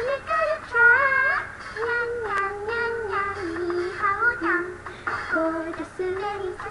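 Anime pop song playing: a high female voice sings a melody over light backing music.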